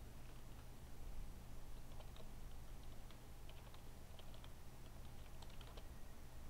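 Faint computer keyboard typing: a quick, irregular run of light key clicks starting about two seconds in and stopping shortly before the end.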